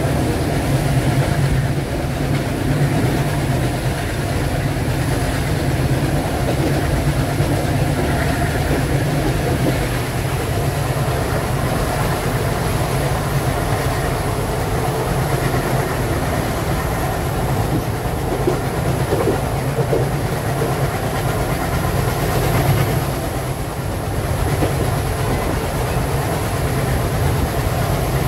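Twin ALCo WDG-3A diesel locomotives under power, their turbocharged V16 engines chugging steadily, heard from alongside the leading unit. Wheel and rail noise run underneath, and a steady high whine sits above.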